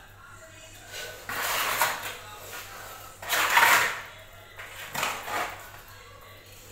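Cement mortar being scraped and scooped out of a plastic basin in a few rough scrapes, the loudest about three and a half seconds in.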